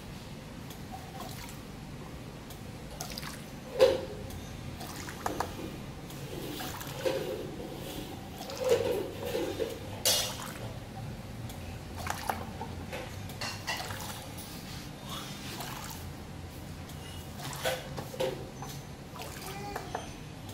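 Two-head peristaltic-pump perfume filling machine dispensing liquid into a glass bottle: a steady low hum with trickling liquid. Clinks and knocks come as the glass bottle is set down and picked up, the loudest about four seconds in.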